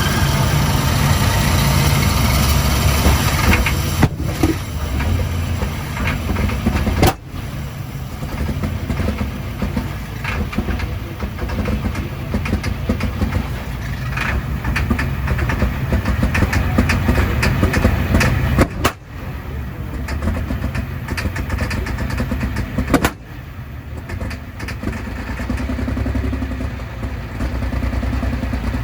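Super stock diesel pulling tractor engine cranking and firing rough and loud on ether, its injection pump stuck open. The sound breaks off abruptly several times.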